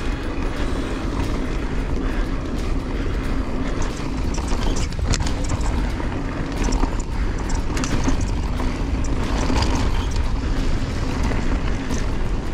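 Riding noise from a helmet- or chest-mounted GoPro on a Canyon Strive enduro mountain bike descending a rocky trail: a steady rush of wind on the microphone and tyres rolling over dirt and stones, with scattered clicks and rattles from the bike, the sharpest about five seconds in.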